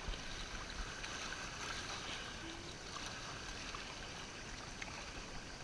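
River water rushing over a shallow riffle and washing against a kayak's hull as it is paddled through, a steady rushing hiss. The sound is muffled by a GoPro's waterproof case.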